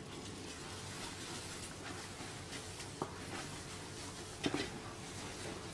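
Hot caramel sizzling steadily in a steel pot as boiling cream is poured in and stirred with a wooden spoon, with a couple of faint knocks of the spoon about three seconds in and again a little later.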